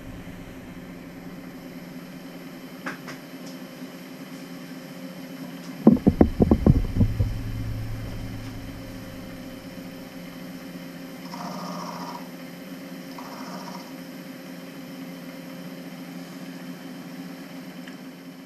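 Milling machine running with a steady motor hum while an end mill cuts a small radius in a workpiece turned by hand on a rotary table. About six seconds in, a loud rapid clatter lasts about a second, then the machine runs on steadily.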